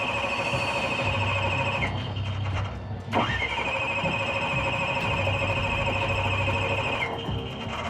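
Starter motor cranking the supercharged drag car's engine twice without it firing. Each try is a high whine that rises quickly and then holds steady for a few seconds before cutting off, the second starting about three seconds in.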